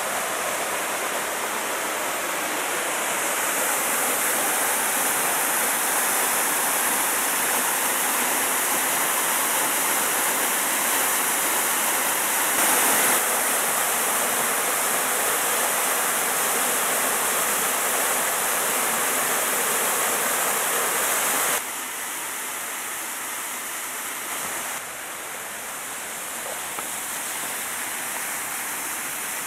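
Waterfall on a mountain stream rushing steadily, falling water with no other sound. It drops a little in level about three-quarters of the way through.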